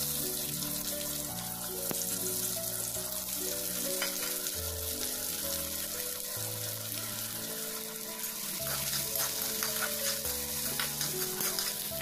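Sliced onions sizzling steadily in hot oil in a wok, with a spatula stirring and scraping through them now and then.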